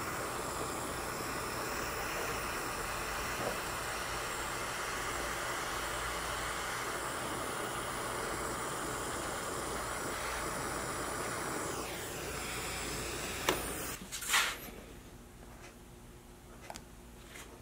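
Handheld butane mini torch flame hissing steadily as it melts a polyethylene welding rod into a plastic tank. The hiss stops about thirteen seconds in with a click, followed by a brief burst of handling noise and a much quieter stretch.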